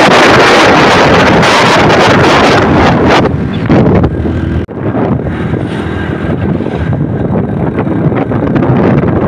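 Wind rushing over the microphone of a camera on a moving motorcycle, with the motorcycle's engine running underneath. About three seconds in, the wind noise turns duller and quieter, with one brief dropout near the middle.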